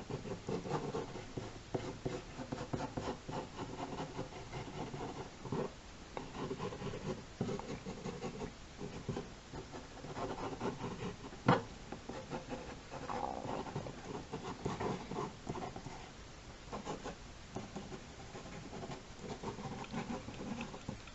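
Sketching on paper: quick, irregular scratching and rubbing strokes of a drawing tool, with one sharp tap about eleven seconds in.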